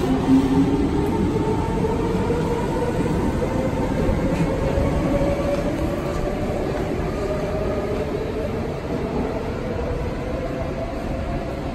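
Kawasaki–CRRC Sifang C151B metro train accelerating out of the station. Several tones rise in pitch as the traction motors speed up, over a steady rumble of wheels on rail that slowly fades as the train leaves.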